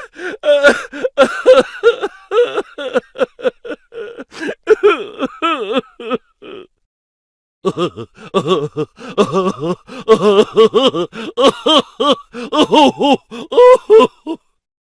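Two comedy sound-effect clips of a human voice making rapid, choppy nonverbal vocal sounds with pitch sliding up and down, the second starting after about a second of silence near the middle.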